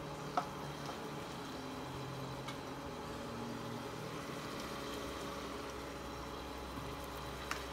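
Chicken pieces and red onion sizzling steadily in a shallow layer of sauce in a nonstick frying pan. There is a sharp tap about half a second in and another near the end.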